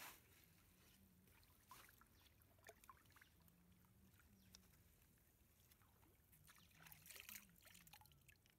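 Very faint water sounds: a few small drips and splashes, busiest near the end, as a fish is picked out of a wet gill net in shallow water.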